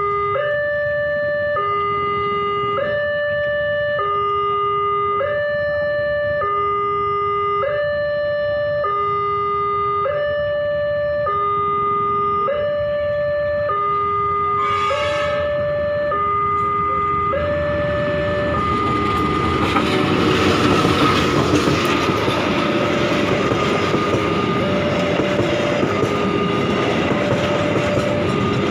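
Railway level-crossing warning alarm sounding a two-tone electronic signal that alternates high and low about once a second. About halfway through a CC 201 diesel-electric locomotive gives a short horn blast. From a little past halfway the locomotive and its passenger coaches pass close by with a loud rumble and wheel clatter, and the alarm carries on underneath.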